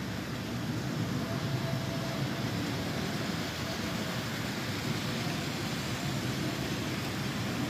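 HO scale model train running along the layout track: a steady low rolling noise of the locomotive's motor and wheels on the rails.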